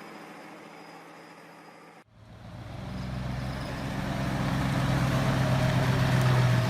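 Heavy vehicle engine running, cut off abruptly about two seconds in. A louder engine with a steady deep hum follows and grows gradually louder.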